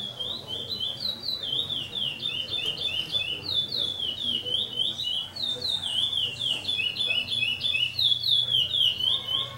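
A songbird singing a fast, unbroken run of high, downward-slurred notes in quick repeated phrases, loud and close.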